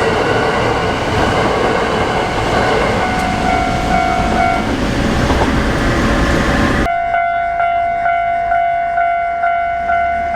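Hankyu Kyoto Line train passing a level crossing, its wheels and running gear rumbling loud and close, with a brief steady tone about a third of the way in. About two-thirds through, this cuts off suddenly. A Japanese level-crossing warning bell then rings steadily, about two strikes a second.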